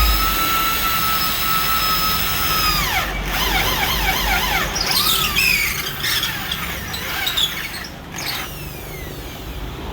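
Electric drill boring the marked holes for wall plugs. It whines at a steady high pitch for about three seconds, then the pitch drops and wavers up and down quickly as the speed changes, fading out in the last few seconds.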